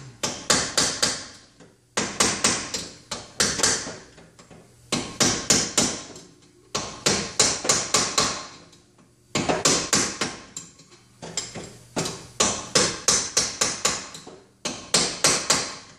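Ball-peen hammer tapping a drift against the back of a Porsche 914 rear wheel bearing's outer race, driving the bearing out of the hub. The strikes are quick, light and metallic, several a second, coming in short runs with brief pauses between.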